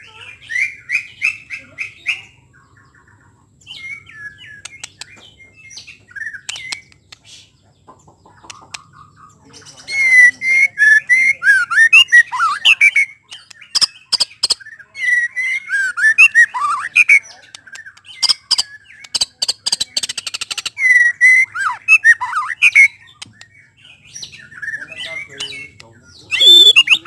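White-rumped shama singing: varied whistled and chattering phrases mixed with rapid clicking rattles. The song comes in short snatches, then in three long, loud runs from about ten seconds in.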